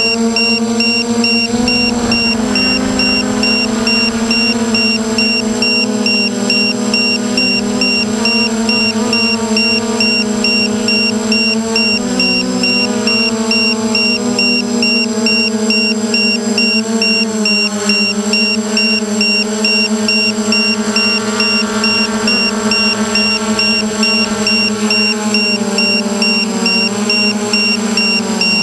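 F450 quadcopter's four electric motors and propellers, heard from the drone's own camera: a steady multi-tone whine whose pitch wavers up and down every few seconds as it flies.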